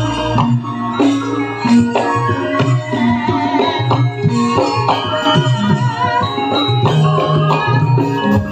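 Javanese gamelan music: bronze metallophones ring out sustained pitched notes over a busy pattern of hand-drum strokes.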